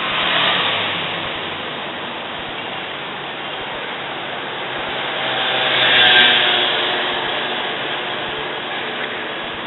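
Steady street-traffic noise, with a delivery lorry's engine running close by. It swells about half a second in and again, loudest, around six seconds in, as vehicles pass.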